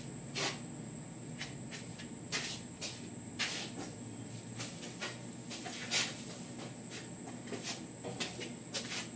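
Scattered light clicks and knocks at irregular intervals, the sound of tools and metal parts being handled at a workbench, over a faint steady high-pitched whine.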